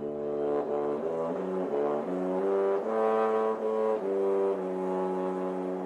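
Brass instruments playing a short passage of chords, the notes changing every half second or so and ending on a long held low note.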